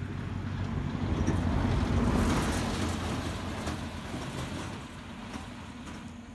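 A passing motor vehicle: a low engine hum and rushing noise that swell to a peak about two seconds in, then slowly fade away.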